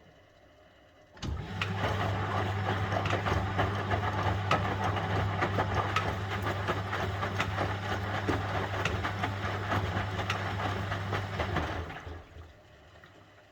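1971 Constructa Garant 491 washing machine's drum motor starting about a second in and turning the drum for about ten seconds with a steady hum, laundry and water sloshing and clattering inside, then stopping near the end: one stroke of the wash cycle's start-stop drum rhythm.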